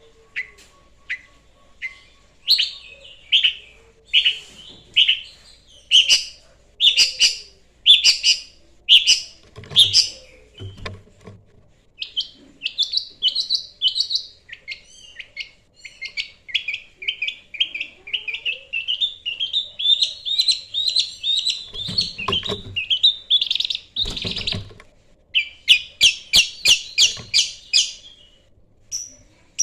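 Long-tailed shrike singing: harsh, high notes spaced about a second apart, then quick runs of twittering and a long continuous chattering warble, with fast repeated notes near the end.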